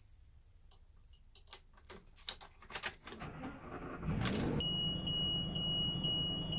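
Light jangling and clicking, like a bunch of keys being handled, then a thump about four seconds in, after which a steady high-pitched electronic beep tone sounds with a faint pulse about twice a second.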